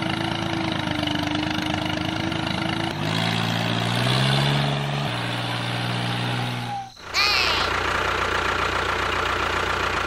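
Tractor engine idling steadily, its pitch stepping to a new level about three seconds in and again about five seconds in. It cuts off about seven seconds in, and a different, noisier sound follows.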